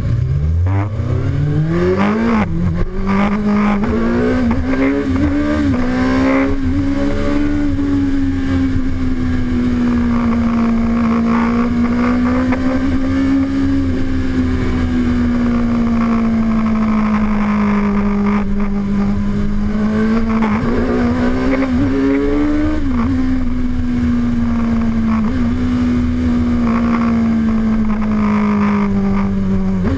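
Suzuki sport bike engine heard from the rider's seat, revving up hard over the first couple of seconds, then running at high speed with a steady engine note that swells and eases with the throttle, with a few quick rev rises and drops about two-thirds of the way through. Wind rushes past the microphone throughout.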